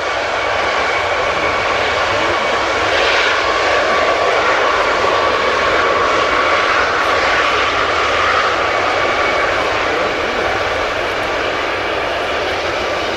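Antonov An-225 Mriya's six turbofan engines running at low power as the giant aircraft rolls past after landing: a steady rush of jet noise with a high whine over it that fades near the end.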